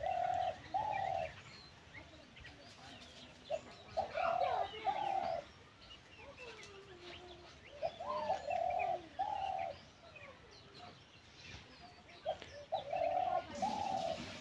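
Young caged decoy dove, hoisted high in a tree, cooing: four phrases of two or three short low coos, about four seconds apart. Faint chirps of other birds sound between them.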